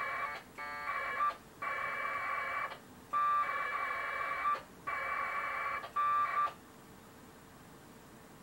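AX.25 packet radio data bursts from the radio's speaker: warbling modem tones in about six quick packets with short gaps, the traffic of a ping going over the radio link. The tones stop about six and a half seconds in, leaving faint steady receiver hiss.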